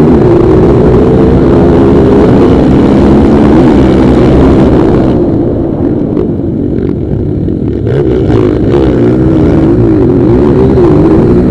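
Several motocross dirt bikes running, engines revving up and down. The sound eases for a few seconds in the middle, then comes back at full strength.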